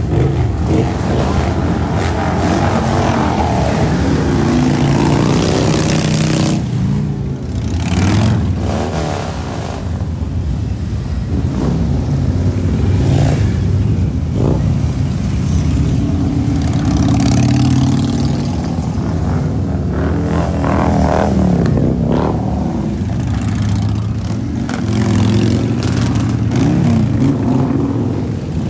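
A procession of large touring motorcycles riding past one after another, their engines running and revving. The sound swells and fades as each bike goes by.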